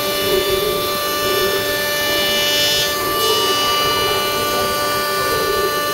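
CNC router spindle running at speed, its bit cutting into a wooden door panel: a steady whine of several tones over the noise of the cut.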